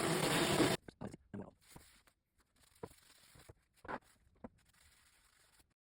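A loud, steady power-tool noise cuts off abruptly under a second in. A few faint, short knocks and taps follow.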